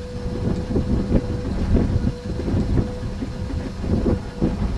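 Wind buffeting the camcorder microphone in uneven low gusts, with a thin steady hum under it.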